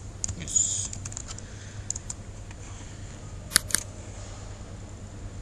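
A few scattered computer keyboard clicks, the sharpest a quick pair about three and a half seconds in, with a short hiss about half a second in, over a steady low electrical hum.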